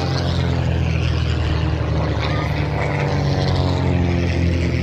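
Piston-engined propeller aircraft flying past in a display, its engine giving a loud, steady drone that sags slightly in pitch.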